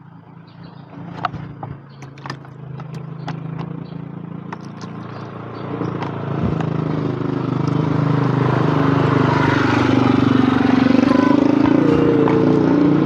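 A motor vehicle's engine getting louder over several seconds and then staying loud close by. A few sharp clicks come early on, over a low hum.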